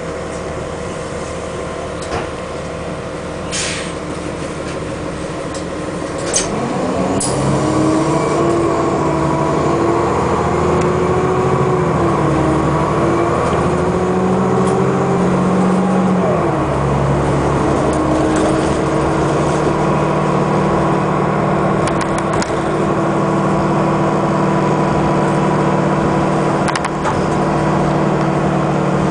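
City bus diesel engine heard from inside the passenger cabin. It runs low for the first few seconds, with a few clicks and a brief hiss. About six seconds in it pulls away, its pitch climbing as it accelerates, drops at a gear change about sixteen seconds in, then runs steadily at cruising speed.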